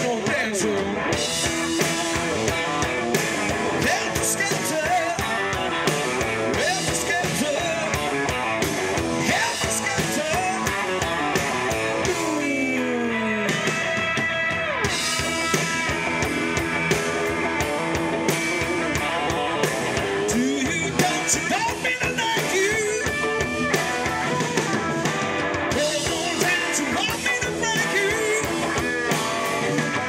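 Live rock band playing through a PA: electric guitars, bass, drum kit and a lead singer. Near the middle the cymbals drop out briefly while a note slides down in pitch.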